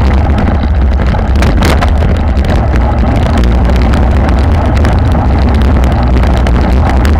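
Wind buffeting the microphone of a camera mounted on a road bike racing at about 45 km/h, a steady deep rumble, mixed with the hum of the tyres on brick paving. A few short clicks or rattles stand out about a second and a half in.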